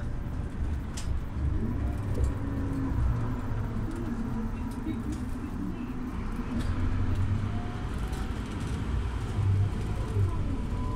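Scania OmniLink city bus running, a steady low rumble of engine and drivetrain muffled by the covered microphone. It swells about six and a half seconds in and again near the end.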